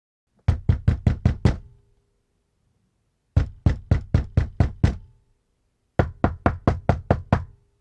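Knocking on a door: three bursts of rapid knocks, six to eight quick raps each at about five a second, with pauses of about two seconds between bursts.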